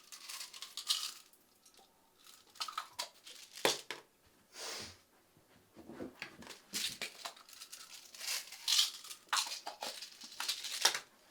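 Crinkling and rustling handling noise in irregular bursts, like something being crumpled and torn.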